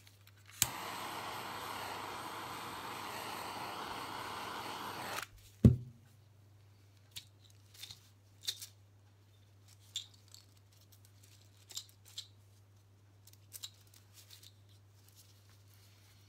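Craft heat gun switched on with a click, blowing a steady rush of air for about four and a half seconds, then cut off. A heavy thud follows, then a few scattered light clicks and taps.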